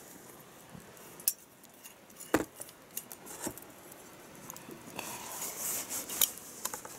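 Glass clinks and light knocks from a sake bottle and small cups being handled on a table, with a sharper knock about two and a half seconds in.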